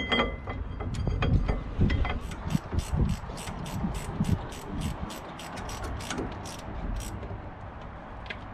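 Ratchet spanner clicking in quick back-and-forth strokes, about four clicks a second, on a brake caliper bolt, after a few knocks of metal against metal in the first two seconds.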